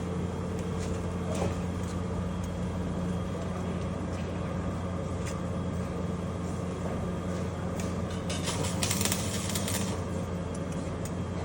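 Arc welding: a steady electrical hum with scattered crackles, and a louder stretch of sizzling hiss about nine seconds in.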